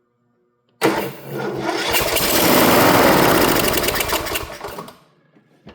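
Kohler 18 hp mower engine, on choke with the air cleaner off, cranking on the electric starter and catching on priming gas: it starts suddenly about a second in, runs up for a few seconds, then dies away. It fires but won't stay running.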